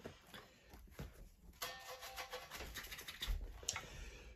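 Faint rubbing and scratching of hands on an unstrung electric guitar as it is handled and turned over. The noise becomes a busier run of quick small scratches from about halfway through.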